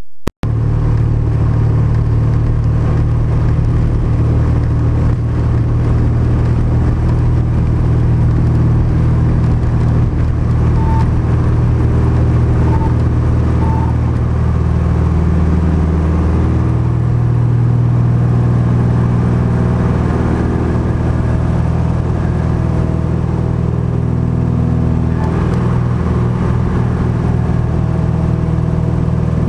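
Cessna R182 Skylane's six-cylinder piston engine and propeller running steadily at departure power, heard from inside the cockpit. The engine note shifts slightly about halfway through.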